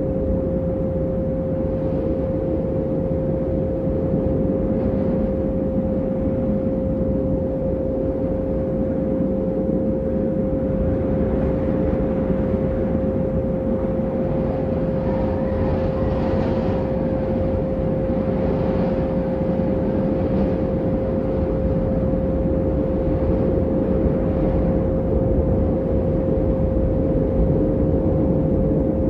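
A steady pure tone a little above 500 Hz, held without change, over a low rumbling drone, with faint higher swells about halfway through: a meditation 'frequency' track.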